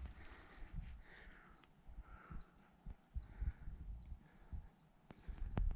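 A small bird giving a short, high chirp that slides upward, repeated evenly about once every 0.8 seconds, eight times, over faint low thumps.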